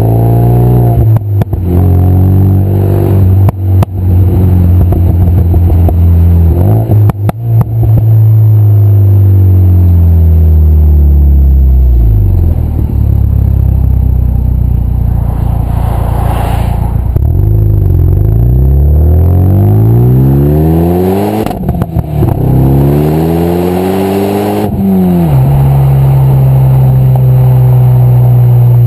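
Renault Mégane RS250's turbocharged four-cylinder heard at the tailpipe through a straight 3-inch Milltek centre section and small Powerflow rear box while driving. The revs hold, fall away slowly, climb again and drop off before settling to a steady cruise, with short pops and crackles on the overrun around the gear changes.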